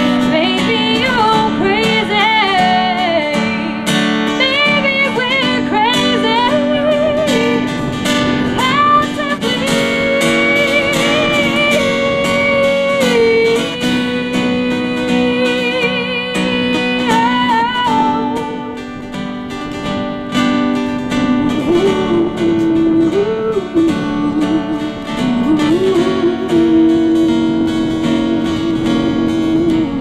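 A woman singing with vibrato over a strummed acoustic guitar. Near the end the voice holds one long note.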